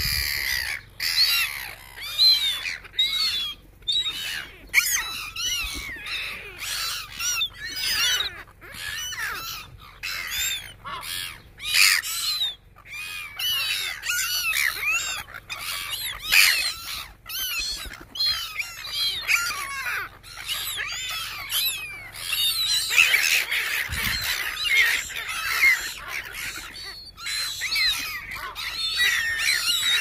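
A flock of gulls squawking as they squabble over hand-fed bread: many short, harsh calls overlapping at once, thickest about three-quarters of the way through.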